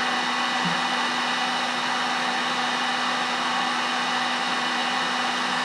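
Electric heat gun running steadily, an even blowing rush with a low hum, as it heats a solder-seal heat-shrink wire connector whose solder ring has melted into the wires.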